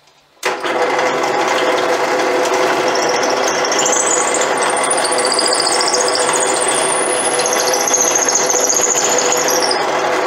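Benchtop drill press switched on and running, its twist bit boring a pilot hole into a wooden block. A high wavering squeal rides over the motor from about three seconds in and cuts off suddenly just before the end.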